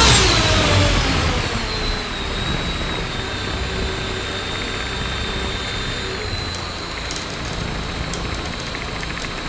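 Hacker A60-16L brushless motor spinning a homemade six-blade propeller on a test stand. It is throttled back at the start: its whine and the propeller drone fall in pitch and level over about the first two seconds. It then runs steadily at the lower speed.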